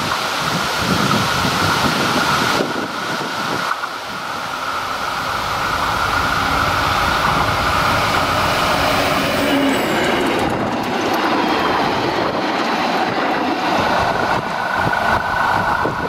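Narrow-gauge diesel train passing close on a curved track, with its engine running and wheels rolling over the rails. A steady high wheel squeal fades after the first few seconds and returns near the end.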